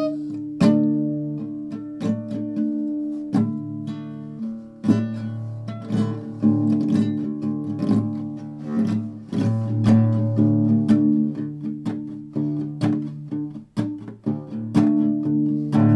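Music: an acoustic guitar strumming chords in sharp, repeated strokes, with no singing.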